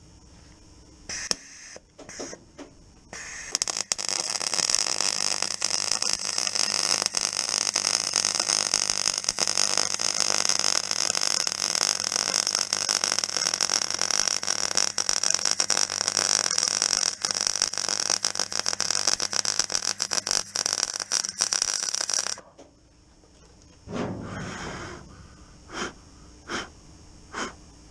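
MIG welder arc crackling steadily while a seam weld is run down a vertical joint in the thin steel floor panel of a classic Mini, with the shielding gas on. A few short bursts of arc come first, then about nineteen seconds of continuous welding that stops suddenly.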